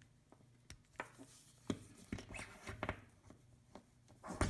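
Scattered clicks, taps and scrapes of hands working the removed tip of an Engineer SS-02 solder sucker to clear solder that has solidified and jammed inside it. The loudest knock comes near the end.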